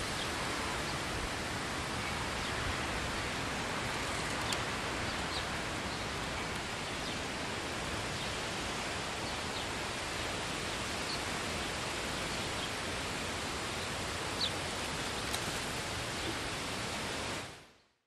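Steady wind rushing through the trees, with a few faint, short, high bird chirps scattered through it. The sound fades out near the end.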